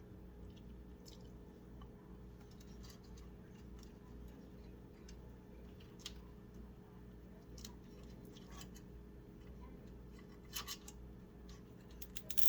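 Scattered small clicks and scratches of cables and plastic parts being handled and routed inside a PC case, with a cluster of clicks about ten and a half seconds in and a louder burst near the end, over a steady low hum.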